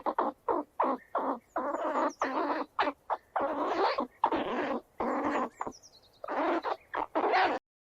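Squirrel calls: a rapid series of short, harsh chattering calls that cuts off abruptly near the end.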